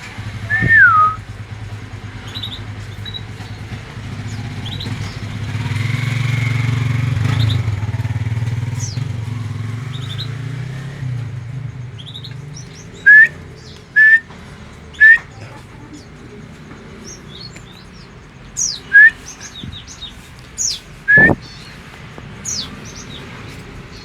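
Javan myna calling: short, loud whistled notes, one at the start and then a run of them spaced about a second apart in the second half. A passing motor vehicle's low hum swells and fades in the first half.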